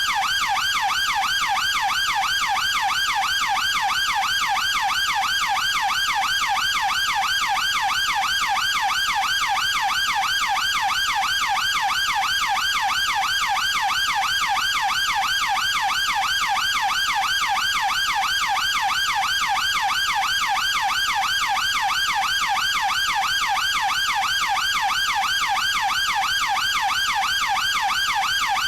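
UK police car siren in its fast yelp mode: a loud, steady tone sweeping rapidly up and down, about three times a second, without a break.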